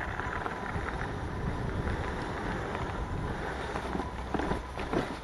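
Mountain bike rolling fast along a leaf-covered dirt singletrack: steady tyre rumble and wind buffeting the on-bike camera microphone, with a few sharp knocks from the bike over bumps about four to five seconds in.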